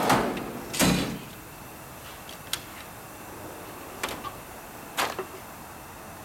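Steel tool chest drawer sliding shut and closing with a heavy knock about a second in, followed by a few short metallic clicks and knocks as the next drawer is handled.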